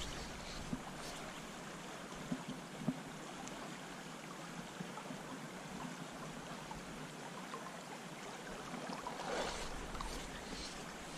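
River water flowing over a shallow riffle: a steady, quiet rush, with a few faint ticks in the first three seconds and a brief louder swell about nine seconds in.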